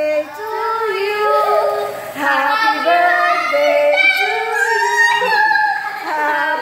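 Women and children singing a birthday song together, held notes sliding from one to the next.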